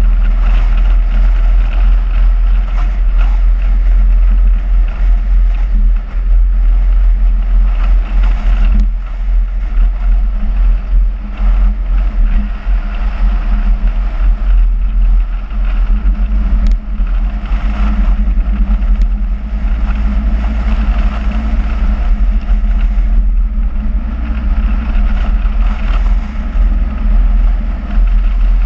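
Car driving steadily along the road, heavy wind rumble on an outside-mounted camera's microphone over a continuous engine and tyre drone.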